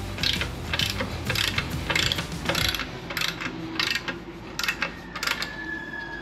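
Socket ratchet wrench clicking in short repeated strokes, about two a second at first, coming more slowly and unevenly in the second half.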